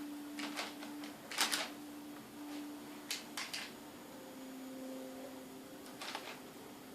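A few light clicks and taps from hands and utensils working cookie dough on a kitchen counter, the loudest about a second and a half in, over a faint low hum.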